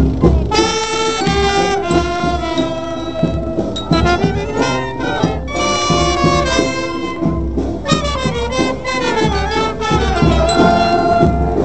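Music led by brass instruments playing held, melodic phrases over a steady low beat.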